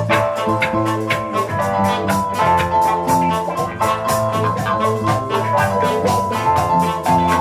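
Instrumental jam-band music: a drum kit keeping a steady beat under a bass line and held melody notes.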